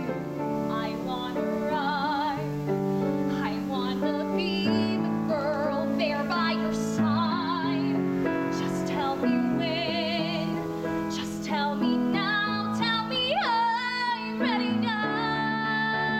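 A young woman singing a solo ballad with vibrato on long notes, over piano accompaniment; about fifteen seconds in she settles on a long held note.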